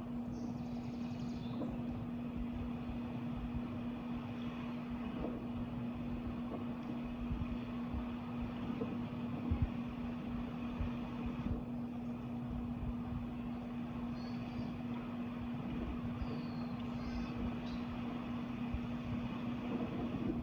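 A steady low hum over a constant rumbling background, like distant traffic or machinery. A few faint, short bird chirps come through now and then, the clearest near the end.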